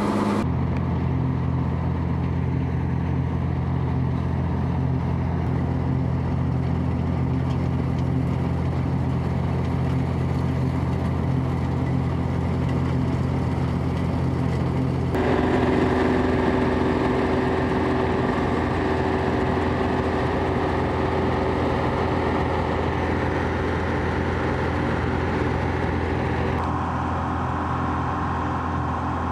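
Combine harvester engine running steadily as it unloads and cuts barley, a constant low drone. The tone of the drone changes abruptly about halfway through and again near the end.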